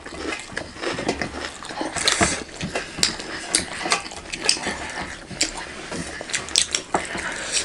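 Close-miked eating sounds: wet chewing and lip-smacking from two people eating rice and dal by hand, with irregular clicks. Fingers work the rice on metal plates.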